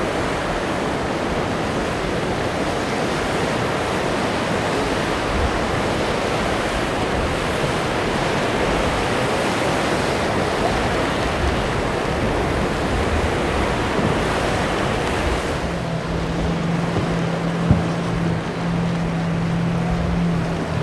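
Wind and rough surf making a steady rushing noise. In the last few seconds an outboard motor's steady drone joins it, and there is one brief knock near the end.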